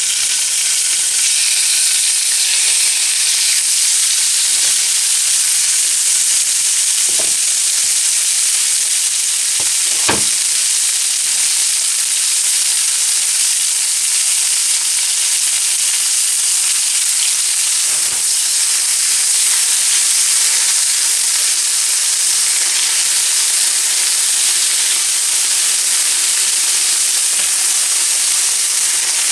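Diced chicken sizzling in hot oil in a frying pan, a steady hiss throughout. Three brief knocks stand out, about seven and ten seconds in and again near the middle.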